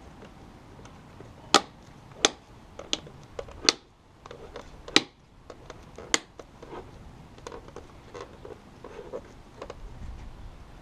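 A series of sharp clicks and knocks from handling and fitting a replacement door-mirror glass: about six loud ones in the first six seconds, then softer ticks and rustles.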